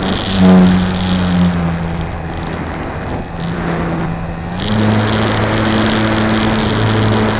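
Electric motor and propeller of an RC model plane running, heard from a camera on the airframe. The motor's pitch drops slightly about a second and a half in, then rises again near five seconds as it speeds back up.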